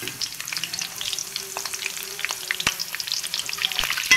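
Slit green chillies and whole spices sizzling in hot oil in a wide metal pan, a steady crackle of many small pops as the moisture in the fresh chillies hits the oil.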